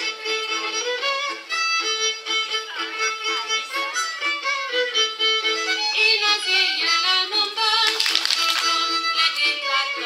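Hungarian folk dance music led by a fiddle, a lively melody with a steady pulse. About eight seconds in, a short burst of hand claps joins the music.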